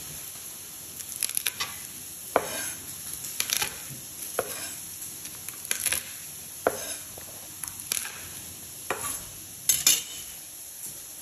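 Steak sizzling in a frying pan as a steady hiss, over about ten sharp knocks and taps at irregular intervals: garlic cloves being pressed, crushed and peeled on a wooden chopping board beside a knife.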